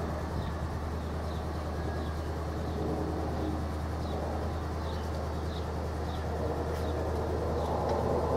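Jet engine noise from a Volaris Airbus A320-family airliner on approach, gear down, overhead, swelling toward the end as it comes closer. A steady low hum runs underneath, and a small bird chirps about once a second.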